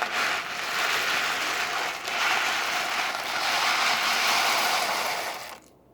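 Dry pasta pouring from a cardboard box into a pot of boiling water: a steady, dense rattle that cuts off suddenly near the end.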